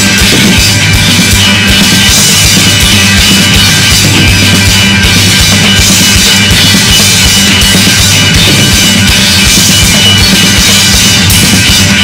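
Rock band playing an instrumental passage with no vocals: drum kit with a fast, steady bass-drum beat under bass and electric guitars.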